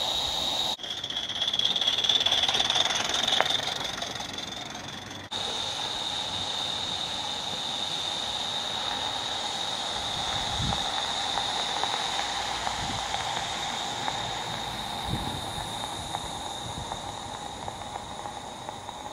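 Gas-fired Aster Krauss 0-4-0 gauge 1 live steam model locomotive hissing steadily, over a steady high-pitched whine. The sound changes abruptly twice in the first few seconds, and a few soft low thuds come in the second half.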